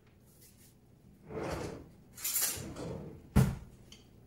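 Kitchen items being handled on a steel worktop: two brief scraping slides, then a sharp knock, the loudest sound, and a couple of light clicks.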